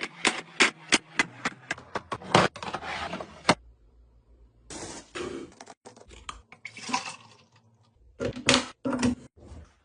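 Groceries and containers being handled and put into a refrigerator: a quick run of sharp clicks and knocks, a short pause, then scraping as items slide. Another cluster of knocks comes near the end.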